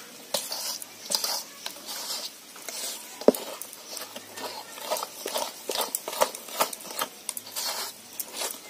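Thick flour batter with grated coconut being mixed and worked in a bowl: irregular wet squishing and slapping strokes with small clicks and knocks against the bowl, one sharper knock a few seconds in.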